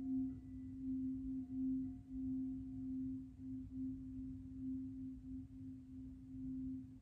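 Sustained low ringing tone of a meditation drone, held at one pitch and wavering slowly in loudness, with a fainter higher overtone that fades out about three seconds in.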